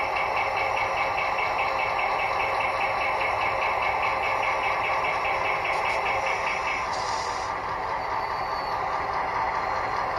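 Model diesel locomotive's sound unit running its engine sound as the locomotive creeps forward, with a rapid, evenly repeating high ringing that stops about seven seconds in. A short hiss follows just after.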